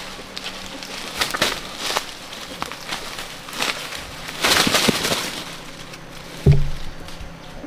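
Footsteps crunching through dry leaf litter and snapping twigs on a forest floor, with a burst of rustling about four and a half seconds in as a trapped wild cock is grabbed among the ferns. A loud, sudden thump follows about a second later.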